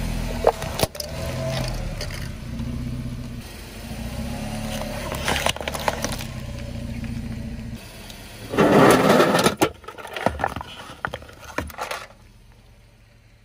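A car idling as its tyre rolls slowly over plastic and paper objects on asphalt, with scattered cracks and crunches as they break. The loudest crunch comes about eight and a half seconds in and lasts about a second. Smaller crackles follow, and it is much quieter near the end.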